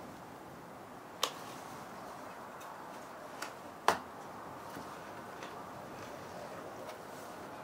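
A few sharp ticks and snaps over a faint steady hiss, the loudest about four seconds in, as a plastic waterproof barrier is peeled away from the black butyl sealant on a van's sliding-door panel.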